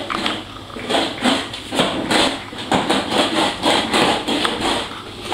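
Children's swing car rolling on a wooden floor, its small wheels rumbling and knocking about twice a second as the rider wiggles the steering wheel side to side to drive it.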